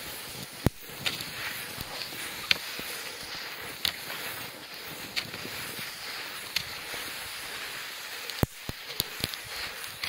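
Footsteps on a wet, snowy road in rain, with a steady hiss and a scatter of sharp taps, several in quick succession near the end.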